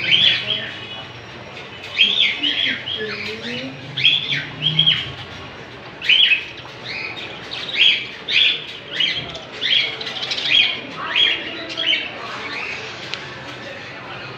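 Small pet parrots calling: many short, shrill squawks in quick clusters with brief pauses between them, over a faint steady low hum.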